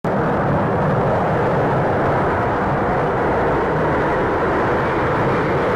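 B-1B Lancer bomber's four afterburning turbofan engines at full power during a night takeoff: loud, steady jet-engine noise.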